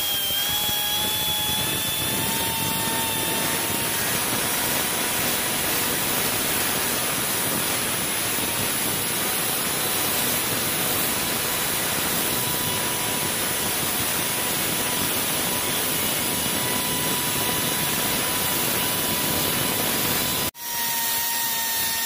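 Handheld rotary tool running at speed, its bit grinding a hole into the end of a motorcycle handlebar grip for a bar-end lever guard mount. It makes a steady high whine over a rough grinding noise, breaks off abruptly for an instant about 20 seconds in, then carries on at a slightly different pitch.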